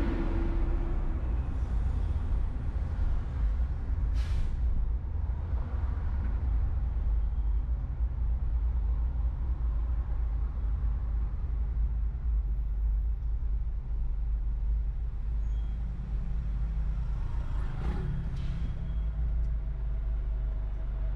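Steady low rumble of a car driving through city traffic, with tyre and road noise. There is a short sharp hiss about four seconds in, and a passing vehicle swells up and fades near the end.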